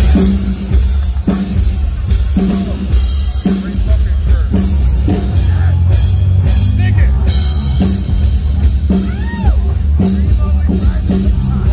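A heavy metal band playing live and loud: a pounding drum kit and bass guitar with a heavy, booming low end.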